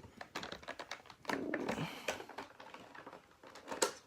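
Irregular small plastic clicks and taps as an action figure's parts and accessories are handled, with some rustling a little over a second in and a sharper click near the end.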